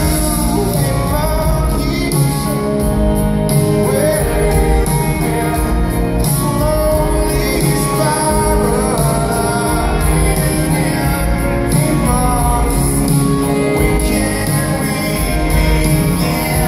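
Rock band playing live: male lead vocal over electric guitars, keyboards and drums.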